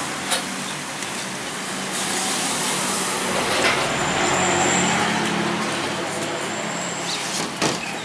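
A road vehicle's engine hum swelling and fading as it passes, over steady street noise, with a light knock near the end.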